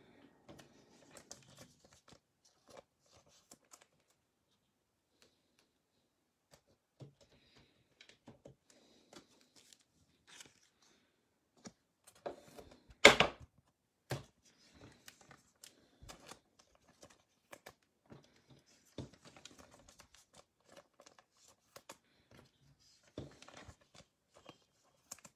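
Glossy trading cards being handled and shuffled by hand: scattered soft clicks and rustles of card stock, with one sharper crackle about halfway through.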